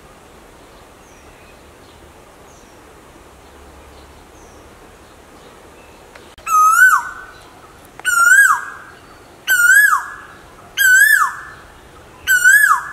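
Male Asian koel giving its 'ko-el' call five times, about a second and a half apart, starting about halfway through. Each call is a loud whistled note that rises and then drops sharply.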